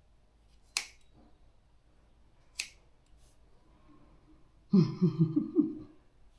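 Two sharp snips of scissors cutting wet hair, about two seconds apart. Near the end, a short, louder burst of a person's voice in quick pulses.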